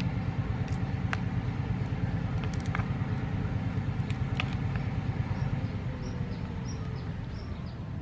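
Small crabs being pulled apart by hand, their shells and legs giving a few sharp clicks over a steady low rumble. A quick run of high chirps comes near the end.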